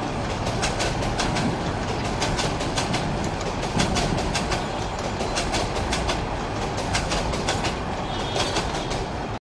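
Container freight train's flat wagons rolling past, wheels clattering over rail joints in a long run of sharp clicks over a steady rumble. The sound cuts off abruptly near the end.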